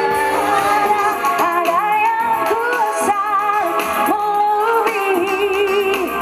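Live band music with a high melody line that bends and wavers with vibrato over a steady accompaniment.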